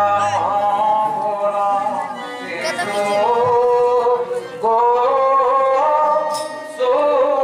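Theatre singing from a Ramlila stage play: one voice holds long notes, stepping to a new pitch twice, with the stage music.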